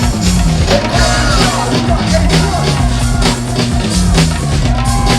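Loud, steady music with a pounding beat and a repeating bass line, with some gliding vocal or instrumental lines over it.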